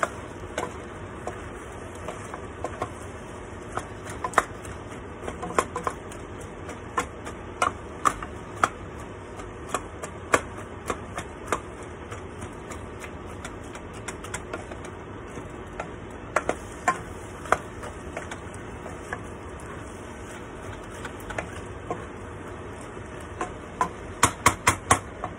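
Wooden spoon stirring ground meat and diced potato and carrot in a metal pot, with scattered knocks and scrapes against the pan over a steady sizzle of frying. Near the end comes a quick run of taps of the spoon on the pot.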